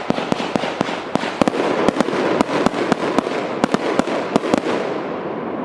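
Consumer firework cake (73 shots, 1 and 1.2 inch calibre) firing rapidly, about four sharp shots a second over a continuous noisy hiss. The shots stop about four and a half seconds in while the hiss carries on.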